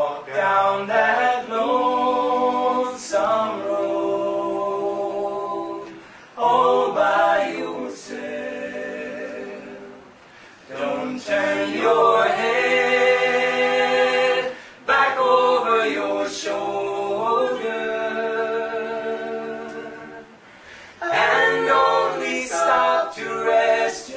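A mixed four-voice a cappella group, three men and a woman, singing in close harmony: phrases of held chords with short breaks between them.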